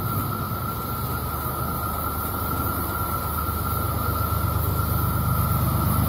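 BNSF diesel-electric freight locomotives approaching at a distance: a steady low engine rumble with a steady high tone above it, growing slowly louder near the end.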